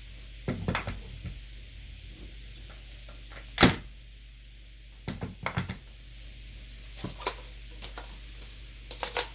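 Clunks and knocks of hard chair parts being handled and set together while the gas-lift strut is fitted into the office chair's base, in short groups, with one single sharp knock louder than the rest about three and a half seconds in.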